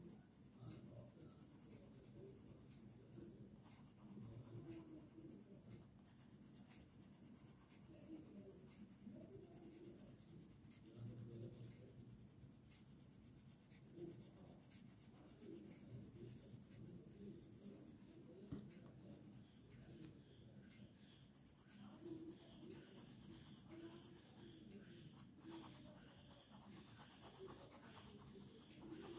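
Blue coloured pencil shading on drawing paper: a faint, continuous scratchy rubbing of the lead on the sheet.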